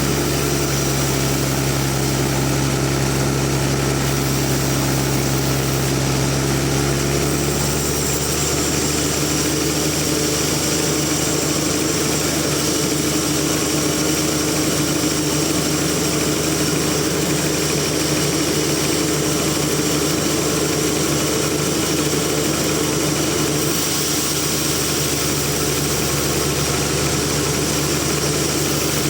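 Sawmill machinery running steadily, an engine with a constant drone. About seven seconds in its tone changes: the deep rumble drops away and a high whine sets in.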